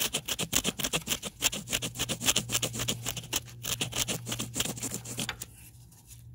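Ratchet wrench clicking rapidly as it is worked back and forth, backing out a 14 mm transmission mount bolt; the clicking stops about five seconds in. A steady low hum runs underneath.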